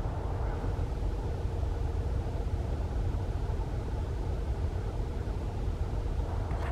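Steady low outdoor rumble with a faint hiss above it, like distant traffic noise or wind on the microphone; no bird calls stand out.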